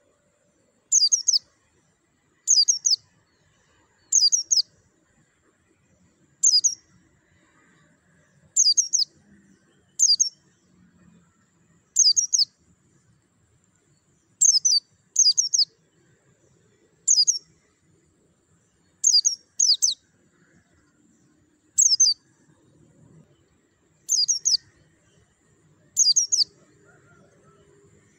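White-eye (pleci) calling with short, high chirps. Each chirp is a quick run of a few falling notes, repeated every one to two seconds, about fifteen in all.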